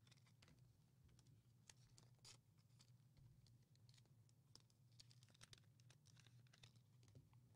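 Near silence: room tone with a faint steady low hum and a scattered handful of very faint ticks.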